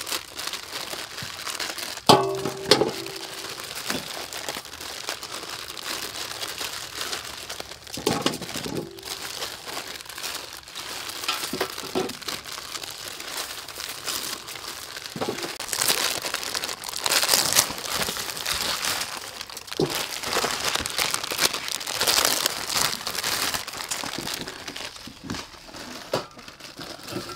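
Plastic instant-noodle packets crinkling and rustling as several people tear them open and shake out the dried noodle blocks. The crinkling is busiest and loudest in the second half, with one brief, sharper sound about two seconds in.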